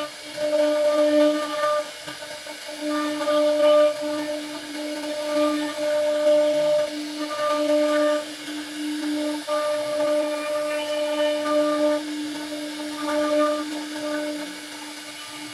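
CNC router spindle carving wood. A steady whine with higher overtones that swell and fade every second or two as the bit cuts along the pattern.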